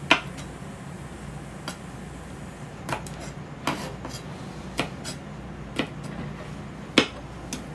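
Kitchen knife chopping through the tips of yardlong beans onto a cutting board: about nine sharp single chops at uneven intervals, roughly one a second. The loudest chops come right at the start and about seven seconds in.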